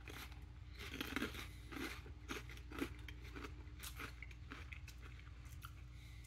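A person chewing puffed, pork-skin-like barbecue snack pieces, with soft, irregular crunches that thin out toward the end. The pieces have gone slightly stale and lost some of their crispness.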